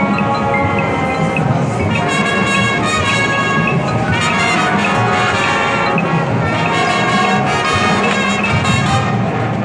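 Live high school marching band playing, with the brass section carrying sustained, full chords and moving lines over the band.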